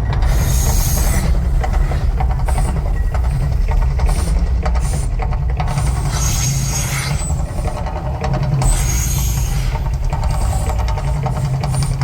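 Volcano eruption show at the Mirage: a loud, steady deep rumble with music over it, broken three times by whooshing bursts of the fire jets, each about a second long, near the start and about six and nine seconds in.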